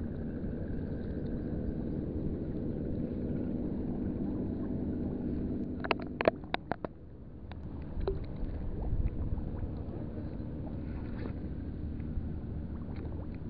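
Low, steady drone of a boat engine. A quick cluster of sharp clicks and knocks comes about six seconds in, the loudest sounds here, with a few more clicks a couple of seconds later.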